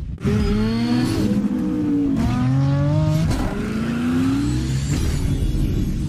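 Car engine revving in repeated rising sweeps, like a car accelerating up through the gears, starting suddenly just after the start.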